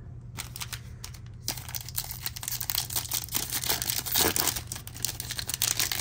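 Foil wrapper of a Topps Chrome baseball card pack torn open and crinkled by hand: a few light clicks at first, then dense crackling of the foil from about a second and a half in.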